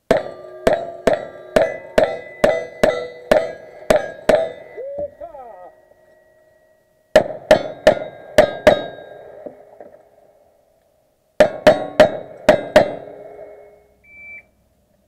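Cowboy action shooting string: a lever-action rifle fires about ten quick shots, each followed by the ring of steel targets being hit. After a pause, revolver fire: five shots, then after another pause five more, also ringing on steel.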